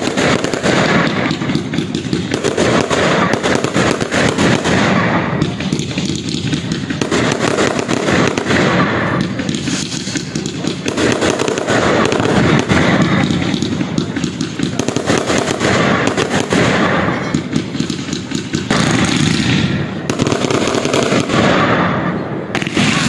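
Aerial fireworks bursting overhead in a continuous barrage of rapid crackling pops and bangs, the crackle swelling and easing every few seconds.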